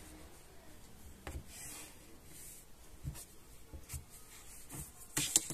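Faint scraping and light tapping of tailor's chalk and a plastic ruler on cloth, with soft strokes about a second and a half in and a quick cluster of clicks near the end.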